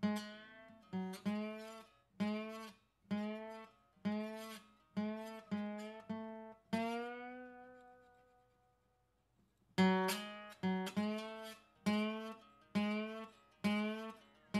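Acoustic guitar music: single plucked notes, each struck sharply and fading, one every half second or so. About seven seconds in, one note rings out and dies away, and after a short gap the playing resumes near ten seconds in.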